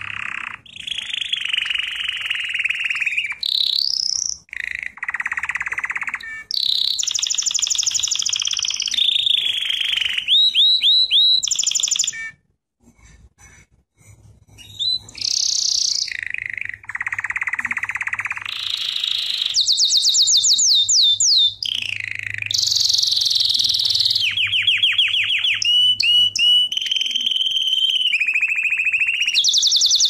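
Canary singing a long song of fast trills: phrase after phrase of rapidly repeated notes, each run at a different pitch, broken by a short pause about twelve seconds in.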